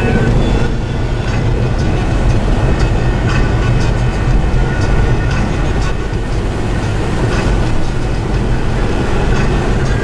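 A steady, loud low rumble with a faint hiss above it and no distinct events.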